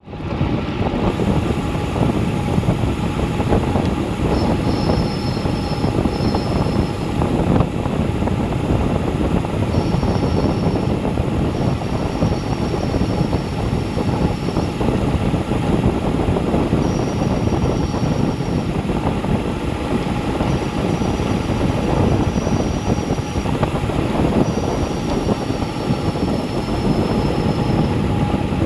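Wind rushing over a bike-mounted action camera's microphone on a fast road-bike descent at about 30 mph, mixed with tyre and road noise. A high thin whistle comes and goes several times.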